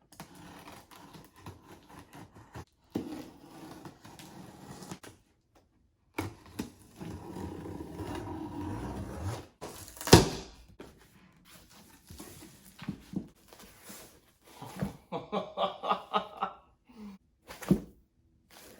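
Cardboard shipping box being opened and its packaging handled: rustling and scraping with scattered knocks, a sharp click about ten seconds in, and a quick run of repeated scrapes near the end.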